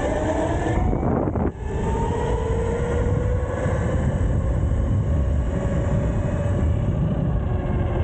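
Modified 72-volt Razor SX500 electric pit bike under way: a whine from its electric drive climbs slowly in pitch as the bike accelerates, over heavy wind rumble on the camera. The sound dips out briefly about a second and a half in, then the whine carries on rising.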